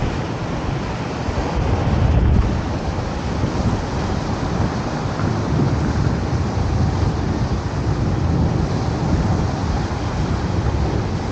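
Gusty wind buffeting the microphone, with the rush of rough, choppy sea and surf behind it. It is strongest around two seconds in.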